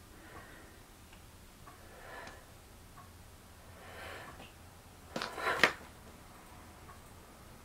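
Faint ticking under soft swishes of movement. About five seconds in comes a brief, louder rustling scrape, the loudest sound.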